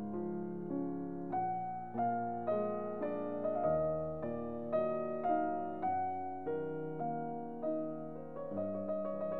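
Background piano music: a slow, gentle piece with notes struck about twice a second, each fading before the next.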